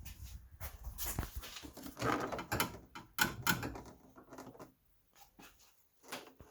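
Plastic retaining tabs of an Audi R8 engine-compartment panel popping into their slots as the panel is pressed down, a run of pops, knocks and scrapes, loudest about two to three seconds in. These pops are the usual sign that the tabs have seated.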